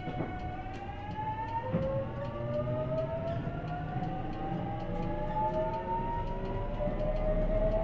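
Toshiba GTO-VVVF traction inverter and motors of a JR Kyushu 813 series electric train whining as the train accelerates away from a stop. Several tones rise steadily in pitch, and the pattern jumps suddenly about half a second and about two seconds in as the inverter changes pulse mode. A low rumble of the running gear lies underneath.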